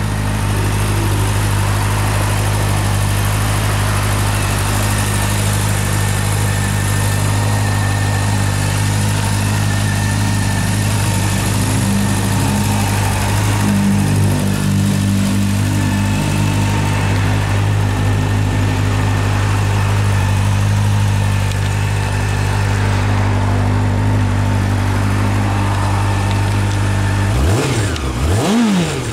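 Honda CB400SF VTEC Revo's 399 cc inline-four idling steadily through its stock exhaust, then blipped twice near the end, the pitch rising and falling back each time.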